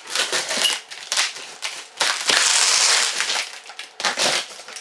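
Cardboard box and plastic packaging being opened and handled: a run of crinkling and scraping noises, with a longer, louder burst lasting about a second, some two seconds in.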